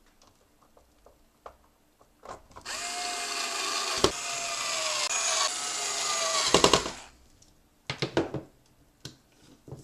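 Power screwdriver running for about four seconds while a screw is driven back into a PlayStation 1 case, its whine dropping slowly in pitch and ending in a short rattle. Light clicks of plastic parts being handled come before and after.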